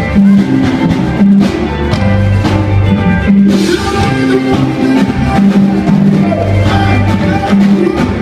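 A live band playing at a sound check, with bass notes changing under regular drum hits and guitar lines above.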